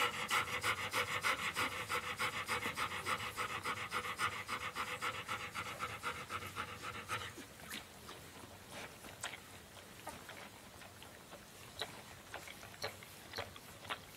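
Bernese Mountain Dog panting fast and evenly, about five breaths a second, stopping about seven seconds in. Soft scattered clicks and smacks follow as she licks a newborn puppy.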